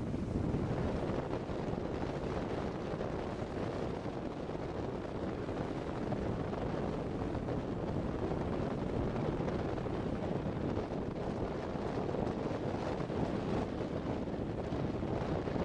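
Wind buffeting the microphone: a steady rushing noise, heaviest in the low range.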